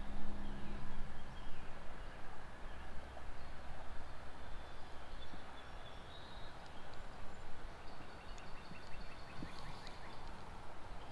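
Steady outdoor background noise with a low rumble, with faint high bird chirps now and then, including a quick run of chirps in the second half.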